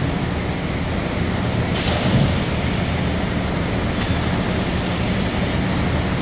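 Shoda twin-table CNC router running with a steady low machine hum, with a short hiss of compressed air about two seconds in and a fainter one near four seconds.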